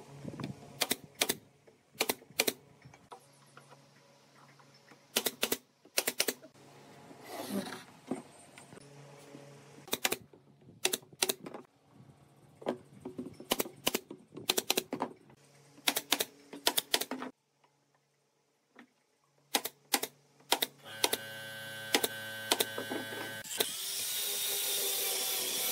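Pneumatic brad nailer firing again and again, sharp shots in quick clusters of two to four, as pine slats are nailed on. Near the end an angle grinder with a sanding disc starts up and runs, then sands the wood with a steady rough hiss.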